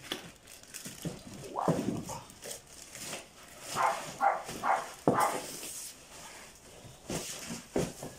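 A cardboard box and plastic bag wrapping rustle and scrape as a motorcycle seat is pulled out and the box lifted, with a sharp knock about five seconds in. A dog makes a few short calls about four seconds in.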